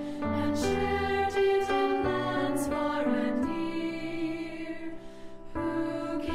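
Slow, gentle background music of sustained notes and chords; a long held chord dips in level around five seconds in before a new phrase begins.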